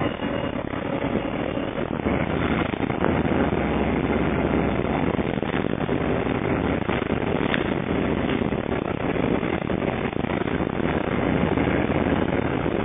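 Steady engine drone and road noise inside an Alexander Dennis Enviro300 bus as it travels. The engine's low hum grows louder about two seconds in.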